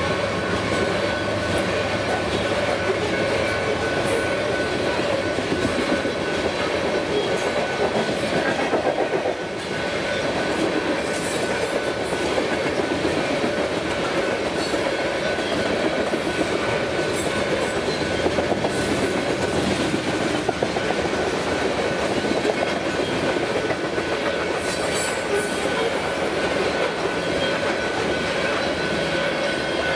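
Freight train of covered grain hopper cars rolling steadily past at close range, with a continuous rumble and the clickety-clack of steel wheels over the rails. A steady high-pitched ringing tone runs through it, and the sound dips briefly about nine seconds in.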